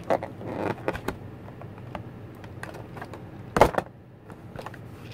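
Hard clear plastic packaging tray being handled as the pistol is worked out of it: scattered clicks, taps and crinkles, with one louder snap about three and a half seconds in.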